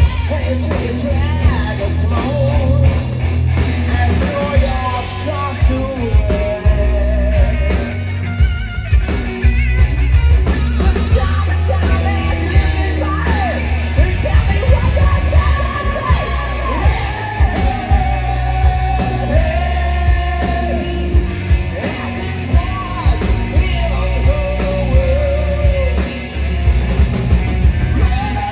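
Hard rock band playing live: a lead vocal over electric guitar, bass and drums.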